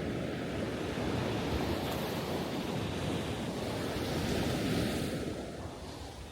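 Ocean waves washing in: a rush of surf that swells and holds, then eases off near the end.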